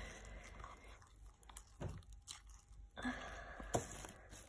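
Quiet handling noises, scattered rustling and small clicks, with one sharp tap near the end.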